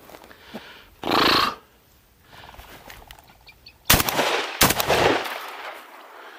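Two shotgun shots about three-quarters of a second apart, each a sharp crack followed by a trailing echo. About a second in, a short loud burst of noise comes first.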